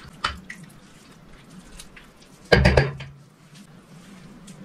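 Silicone spatula stirring a wet egg, potato, broccoli and tuna mix in a glass bowl: faint scraping, a sharp click near the start and a louder clunk against the glass about two and a half seconds in.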